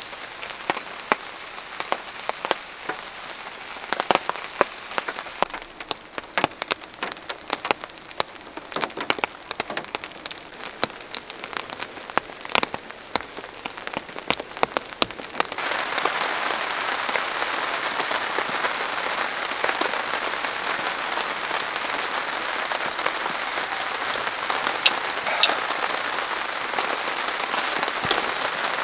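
Rain falling in a forest. For the first half, sharp single drops tick one after another over a light hiss. About halfway through, the sound changes suddenly to a denser, louder, steady rain.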